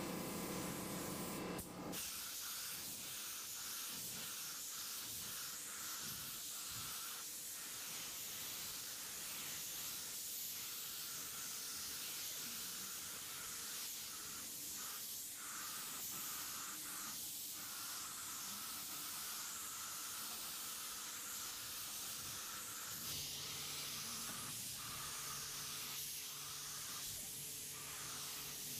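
Air-fed gravity-feed paint spray gun hissing steadily as it sprays paint onto the truck's panels, with brief breaks between passes.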